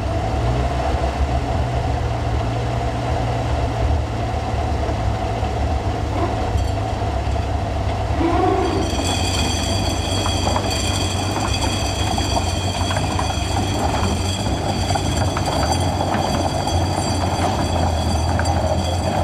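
Studebaker M29C Weasel's six-cylinder flathead engine running steadily. About eight seconds in, a high steady whine joins and the steel tracks start clicking and clanking as the vehicle moves off.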